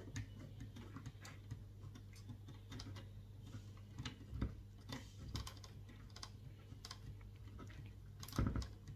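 Scattered light clicks and ticks of screws being turned down while mounting a liquid CPU cooler's pump block, with a louder knock near the end. A low steady hum runs underneath.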